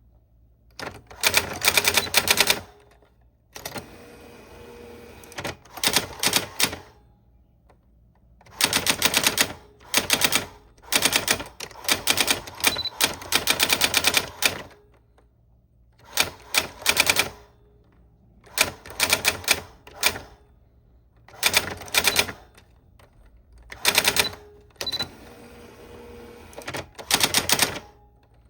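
Typewriter keys being struck in quick runs of typing, each a second or two long, with short pauses between the runs.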